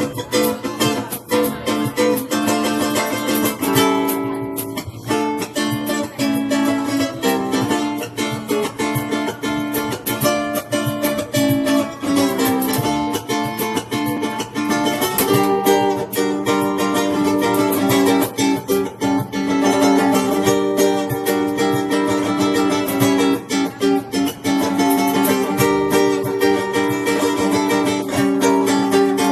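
Ukulele ensemble strumming and picking a tune, with dense rhythmic strokes throughout.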